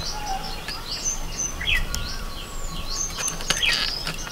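Small birds chirping repeatedly, many quick high chirps with a few whistled notes among them, and a few faint clicks.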